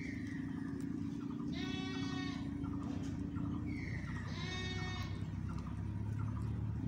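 A goat bleating twice, each bleat about a second long, the second about three seconds after the first.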